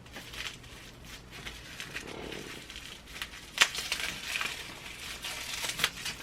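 Handling noises as a portable typewriter is moved and inspected: scattered small clicks and knocks over a crinkling rustle, with a sharper knock about three and a half seconds in and another near the end.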